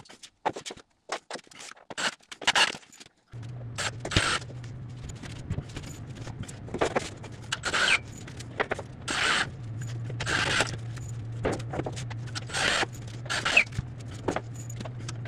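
Repeated short scraping sounds with a few light knocks, over a steady low hum that starts suddenly about three seconds in.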